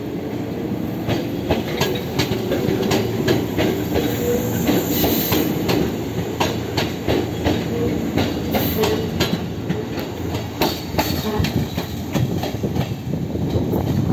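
Fujikyu 6000 series (6700 subseries) electric train pulling away: a steady rumble with the wheels clicking over rail joints and points in quick, uneven runs.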